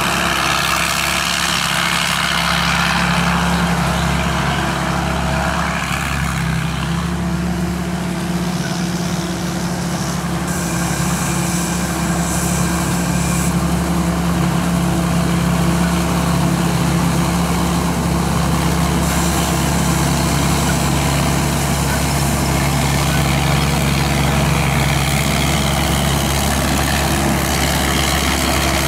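SAK KM-D combine harvester's 260-horsepower turbocharged engine running steadily, a constant low drone with machinery noise over it.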